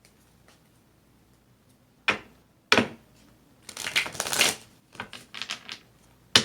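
Tarot deck being shuffled and handled: a few sharp card snaps, a dense flurry of shuffling in the middle, then several shorter strokes and a final snap near the end.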